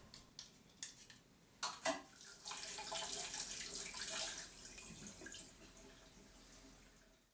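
A few light knocks, then a wall tap running into a stainless-steel sink as hands are rinsed under the stream. The water sound fades out near the end.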